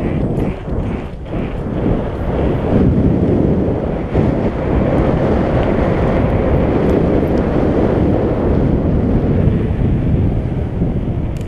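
Loud, steady wind buffeting the microphone of a mountain biker riding on a dirt trail, mixed with the rumble of the bike over the ground and a few rattles in the first couple of seconds.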